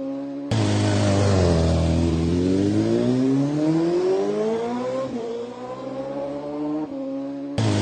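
Small youth ATV engine running, its pitch dipping and then climbing steadily for about three seconds as it accelerates, then dropping back. The sound jumps abruptly in level shortly after the start and again near the end, where the recording is cut.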